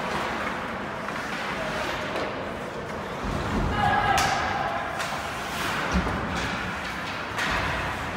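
Ice hockey game play inside a rink: steady noise of skating and sticks on the ice, with a few thuds of puck, sticks or players against the boards, the sharpest about six seconds in. A short shout rises over it around four seconds in.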